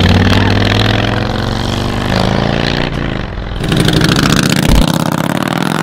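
Harley-Davidson touring motorcycle's V-twin engine running under throttle as the bike rides by. The pitch dips a little about two seconds in, then the engine picks up and runs louder around four seconds in.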